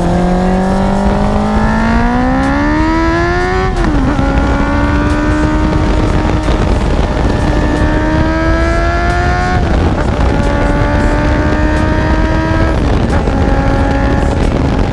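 Honda CB650F's inline-four engine through a Prospeed carbon-fibre aftermarket exhaust, pulling hard under acceleration: the pitch climbs steadily, drops sharply at upshifts about four and nine and a half seconds in, and drops a little again near the end as the bike settles into a steadier run.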